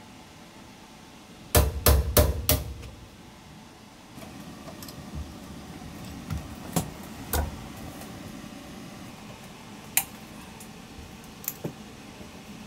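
Sharp knocks and clicks of hands and tools at work: four quick knocks about a second and a half in, then single clicks a few seconds apart.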